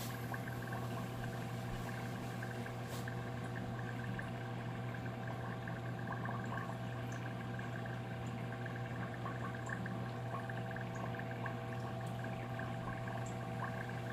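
Aquarium pump running with a steady electric hum, over a faint wash of moving, bubbling water with small scattered ticks.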